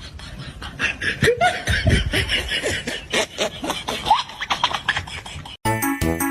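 Laughter with quick squeaky rising and falling calls and clicks. About five and a half seconds in it cuts off sharply and music with a steady beat starts.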